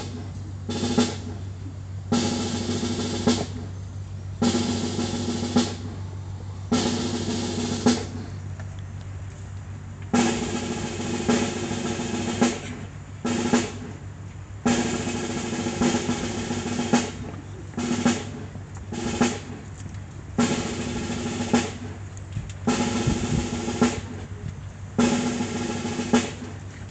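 Military snare drums playing rolls in repeated phrases of one to three seconds with short pauses between, each phrase opening with a loud accented stroke.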